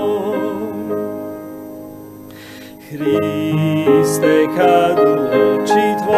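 Hymn sung with piano accompaniment. A held note dies away over the first two to three seconds, and the next verse begins about three seconds in.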